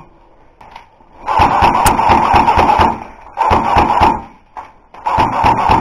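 Airsoft electric gun firing full-auto: three bursts of rapid shots over a motor-and-gearbox whine, the first about a second in and the longest, a short one in the middle, and the last starting near the end.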